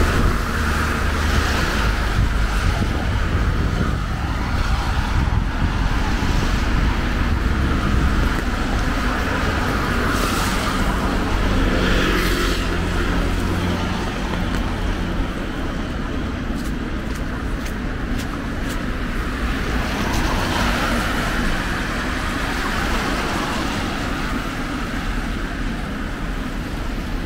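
City road traffic on wet pavement: a steady rumble and tyre hiss, with cars passing now and then.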